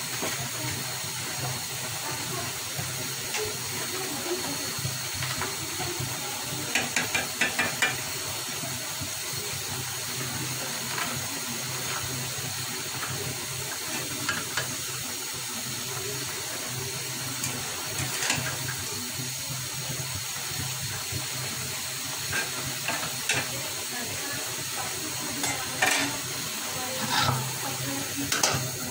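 Vegetables cooking with a steady hiss in a karai over a gas flame, with a spatula scraping and clinking against the pan in short bouts as the bhaji is stirred, the busiest bouts about seven seconds in and near the end.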